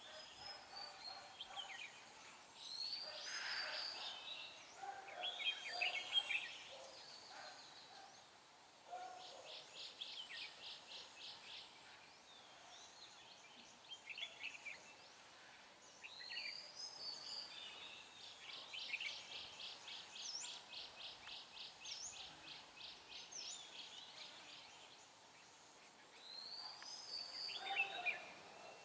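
Red-whiskered bulbuls calling in short, chirpy phrases. Two long, rapid trills come in, one about ten seconds in and one about eighteen seconds in.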